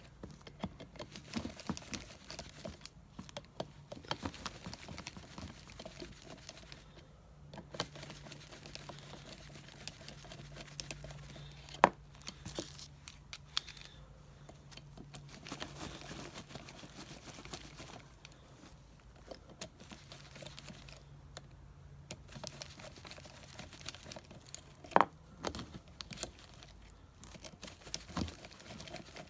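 Scattered clicks, taps and rustling from small metal parts and hand tools being handled while a 722.6 transmission valve body is taken apart, with two sharper clicks near the middle and near the end. A faint steady hum runs underneath.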